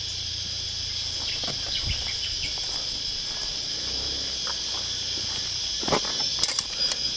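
Steady high-pitched chorus of insects, with a few scuffs and knocks near the end.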